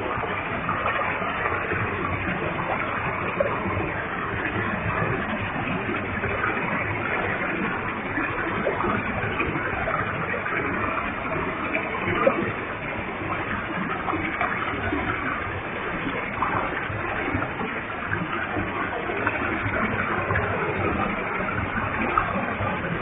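Waterfall with a heavy flow, the water falling and splashing in a steady, even rush with small crackles of spray.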